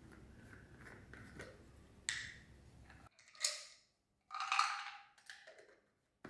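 Plastic supplement jar being handled: the cap comes off with a click about two seconds in, chewable tablets rattle out of the tipped jar into a palm, and the cap clicks back on near the end.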